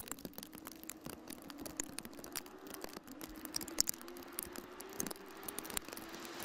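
Raindrops tapping irregularly on a car's windshield and roof, over a faint steady hum.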